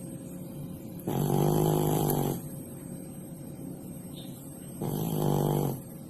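Sleeping cat snoring: two long, pitched snores of about a second each, one about a second in and one near the end.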